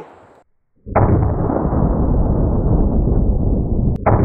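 The echo of a Vepr AK-47 rifle shot in 7.62×39 dies away in the first half second. About a second in, a deep, drawn-out boom starts suddenly and rumbles on, cut short near the end by a second sharp onset of the same: a rifle shot slowed down to accompany slow-motion footage of the hit.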